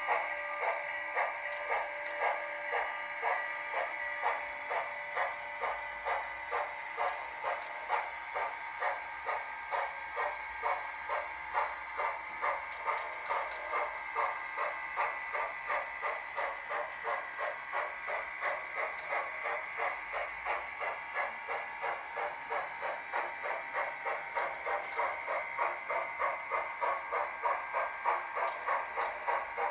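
ESU sound decoder in an HO scale model of a steam locomotive, Canadian National #6060, playing steam exhaust chuffs through the model's small speaker in a steady, even beat.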